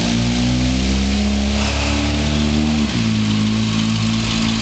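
Engine of a delivery step van running as it drives slowly past, its note shifting abruptly about three seconds in, over a steady hiss.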